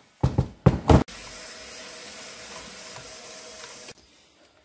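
Three heavy metal clunks in the first second as the Ford 8N hydraulic lift cover and its lift arm are turned over on the workbench. They are followed by about three seconds of steady hiss with a faint hum, which stops abruptly.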